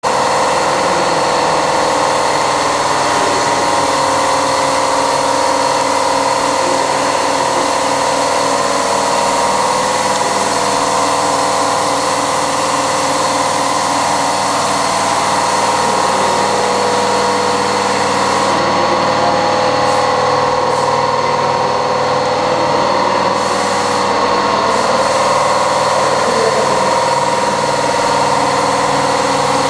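Spray booth air-handling fans running with a steady, loud drone and a hum of several held tones.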